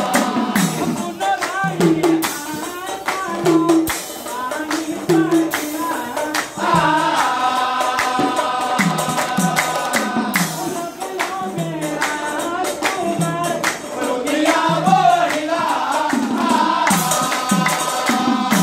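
Nagara naam devotional music: group voices holding long, wavering notes over low drum strokes about every second and a half and frequent cymbal strikes.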